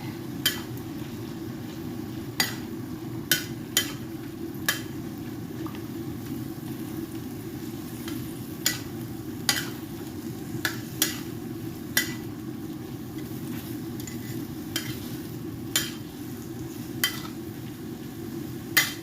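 A metal utensil clinking against a cooking pot at irregular intervals while noodles are stirred, over a steady low simmering noise from the pot.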